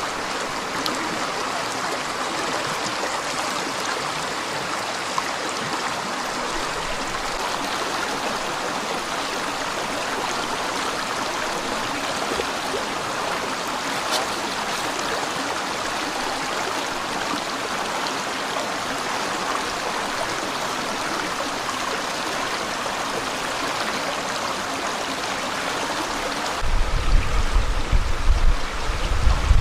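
Stream water running steadily over rocks. Near the end a loud low rumble suddenly comes in on top of it.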